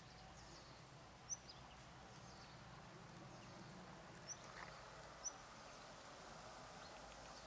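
Near silence: a quiet outdoor background with three short, high chirps from a small bird.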